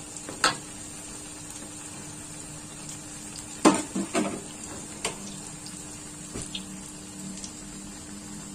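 Tempeh deep-frying in a wok of oil, sizzling steadily, while a metal spatula knocks and scrapes against the wok several times. The loudest clatter comes about three and a half seconds in.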